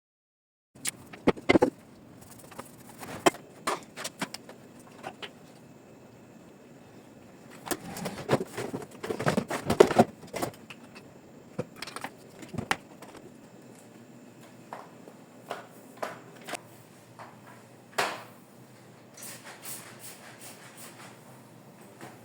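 Irregular clatter of household objects being handled and set down: scattered knocks and clicks, busiest about a third of the way in.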